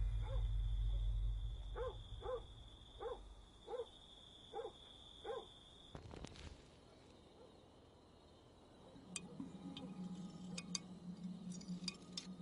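Night ambience: a steady high insect trill with about seven short animal calls, one every two-thirds of a second or so, over a low rumble that fades away. About six seconds in it changes to a quiet room with a faint low hum and scattered small clicks and clinks.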